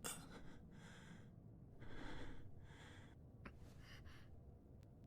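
Faint breathing and sniffling: four or so soft breaths in a row, each lasting about half a second.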